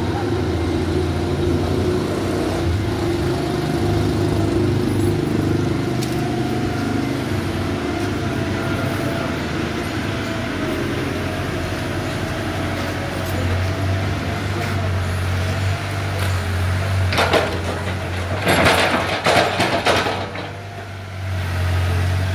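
Heavy construction machinery engine running steadily with a constant low drone. About 17 seconds in, several loud bursts of noise break over it for a few seconds.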